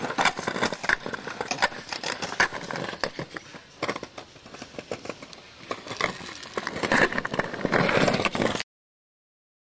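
Skateboard rolling over pavement, its wheels and trucks rattling with rapid clicks and scrapes. The sound cuts off abruptly near the end.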